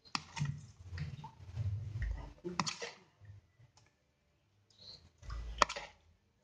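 Banana leaves being handled and folded, crackling and rustling, with a spoon scraping and tapping in a plastic bowl as tofu filling is scooped onto the leaf. Two sharper clicks stand out, near the middle and near the end.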